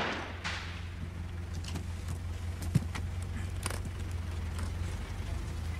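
A steady low hum or rumble, with scattered faint clicks and one sharp knock about three seconds in.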